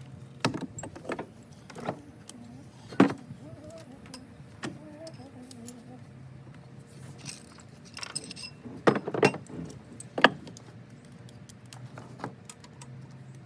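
Scattered metal clinks and knocks of hand tools and loose bolts being handled, with louder clanks about three seconds in and again around nine to ten seconds in.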